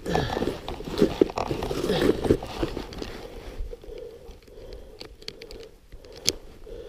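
Snowshoes stepping in deep, wet snow: irregular crunching footfalls, busy for the first few seconds, then quieter and sparser, with louder crunches at the very end.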